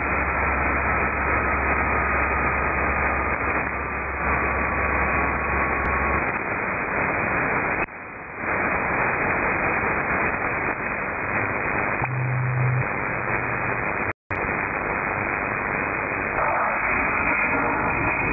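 Shortwave receiver output tuned through the 3–6 MHz bands: dense static and man-made interference, a steady hiss that cuts off above about 2.5 kHz. For the first six seconds a low hum runs under it, along with a faint whistle gliding slowly down in pitch. The sound dips briefly about eight seconds in and drops out for an instant near fourteen seconds.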